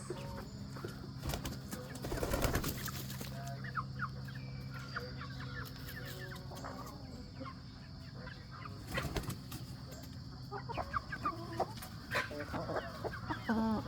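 A flock of chickens clucking, with the teenage pullets still peeping in high, short chirps scattered throughout. A brief burst of rustling about two seconds in and again about nine seconds in, over a steady low hum.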